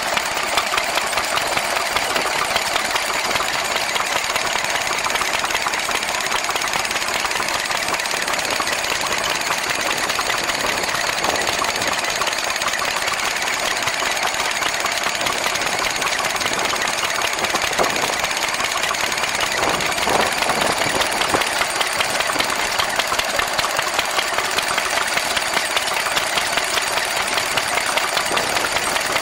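Small single-cylinder vintage stationary engine running steadily with a fast, even knocking beat, driving belts to model workshop machinery.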